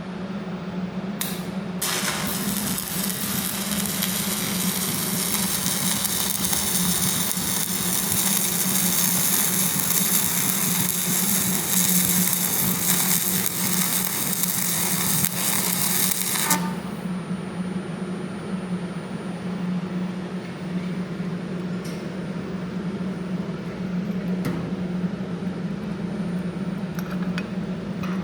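Stick (MMA) arc welding with a Headux Elfin Stick 400 inverter welder: the arc gives a loud, even crackling hiss that starts about two seconds in after a brief spark, runs for about fifteen seconds, and cuts off sharply. A steady low hum runs underneath throughout.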